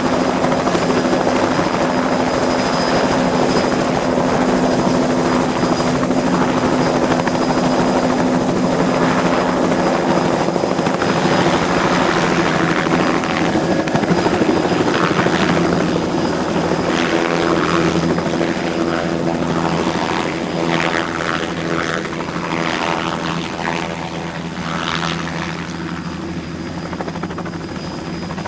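Helicopter running steadily, with rotor chop over a continuous engine drone. The drone's main tone shifts lower partway through, and the sound eases off a little near the end.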